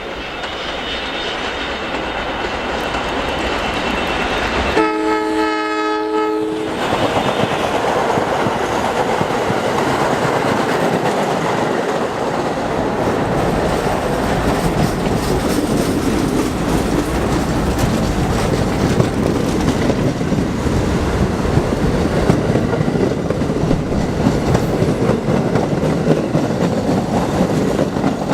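MTA Staten Island Railway train of St. Louis Car Company R44 cars approaching, getting louder over the first few seconds. It sounds one horn blast of about two seconds roughly five seconds in, then runs through with a steady rumble and clickety-clack of wheels over the rail joints.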